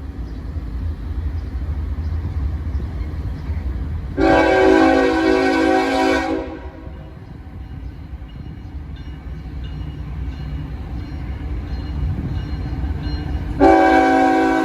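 Norfolk Southern freight locomotive's multi-chime air horn sounding a long blast of about two seconds, about four seconds in, and starting another near the end. Between the blasts the approaching train's low rumble runs on.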